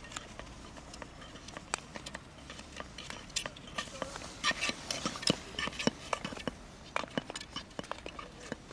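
Irregular sharp clicks and knocks of skating on rink ice, coming thicker about four to six seconds in as a skater passes close.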